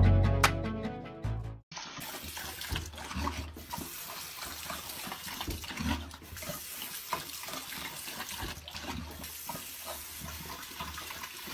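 Guitar music ends abruptly after a second or two; then water runs from a bathroom sink tap while a dog drinks from the stream, with many small irregular splashes and laps.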